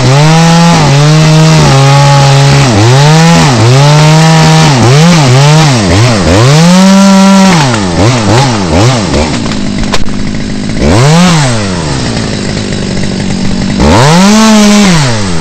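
Two-stroke chainsaw running loud, its engine revved high and let back repeatedly in quick throttle blips, then dropping to idle for a few seconds with one blip before revving up again near the end.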